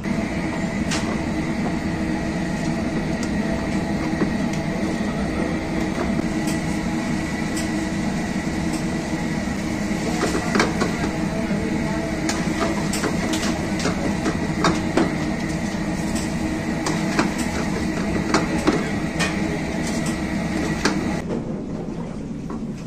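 A metal ladle clinking and scraping against an iron kadhai as chicken curry is stirred, in irregular sharp clinks over a steady kitchen roar with a thin high whine; the whine stops near the end.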